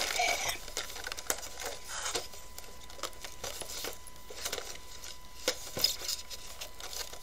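Soft rustling and light clicks and taps of cardboard Funko Pop boxes with plastic windows being handled, with two sharper clicks a little over five seconds in.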